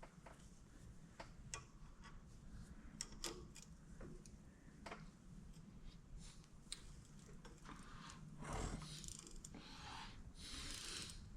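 Faint, irregular metallic clicks and ticks of hand tools on metal as a bolt is tightened, with two short soft rustles late on.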